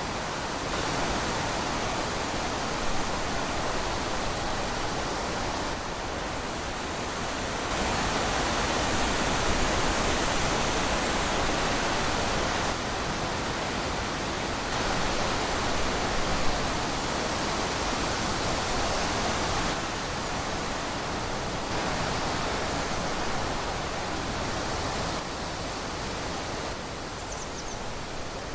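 Steady wind rushing through forest trees, swelling and easing in gusts every few seconds.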